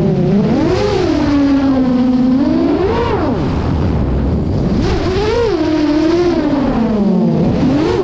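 Props and motors of an 8-inch FPV freestyle quadcopter, two-blade 8x4.5 props on 2807.5 1322 kV brushless motors. The whine swoops up and down in pitch as the throttle is punched and eased, with three sharp rises and a steadier hum between them.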